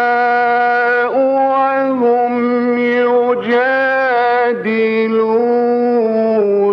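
A man reciting the Quran in the melodic mujawwad style, drawing out one long held note. The voice steps up and down in pitch several times, settles lower and breaks off near the end.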